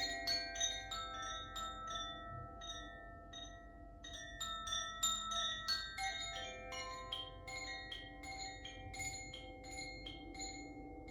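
Tuned healing chimes struck in quick, irregular succession, many bright clear notes overlapping and ringing on. The strikes thin out in the last few seconds while the tones keep sounding.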